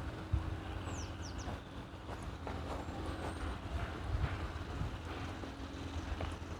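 Outdoor ambience of someone walking on paving, with soft footsteps and wind rumbling on the microphone. A bird gives a few quick, high, falling chirps about a second in.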